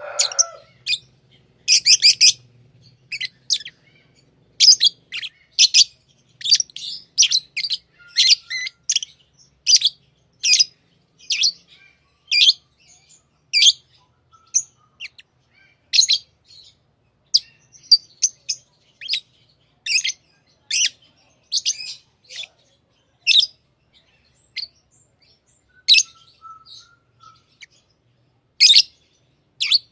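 Pet lovebirds chirping: short, sharp, high-pitched calls in quick irregular runs, about one or two a second with brief pauses.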